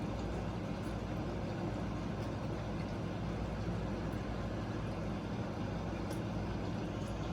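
Steady droning hum with an even rushing noise over it, as of a fan running, and a few faint ticks.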